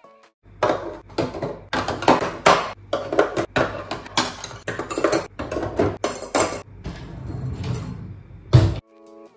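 Dishes and pots clattering and clinking as they are handled, a run of quick knocks over a steady background, with one louder knock near the end.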